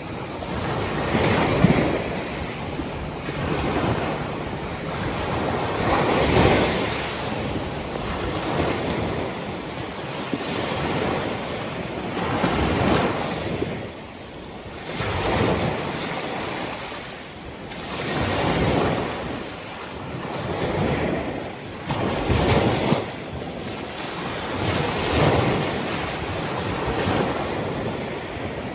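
Small ocean waves breaking on a beach one after another. Each wash swells and fades every two to three seconds.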